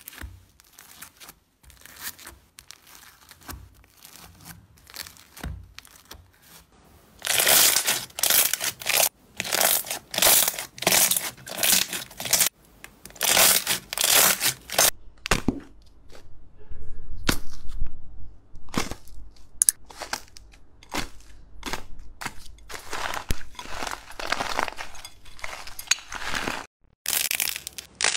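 Slime ASMR handling sounds: quiet scattered clicking as a spoon stirs foam beads, then, from about seven seconds in, loud crinkling and crackling in short bursts as hands press a ball of slime wrapped in plastic film. Shorter crinkles and clicks follow toward the end.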